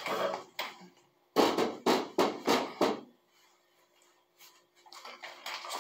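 Handling noise from a person moving about a wheelchair: a short rustle, then four quick scuffs or knocks in about a second and a half, then faint rustling near the end.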